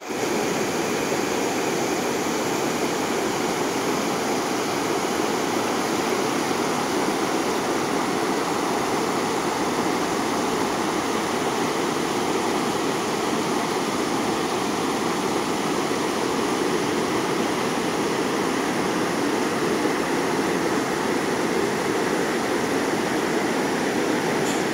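A wide, fast river rushing over a rocky bed and shallow rapids: a steady, even rush of water.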